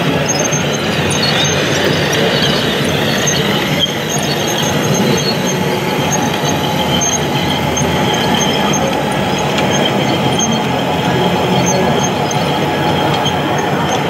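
Radio-controlled Liebherr 956 crawler excavator model driving on its metal tracks: a steady mechanical running noise with a thin high squeal.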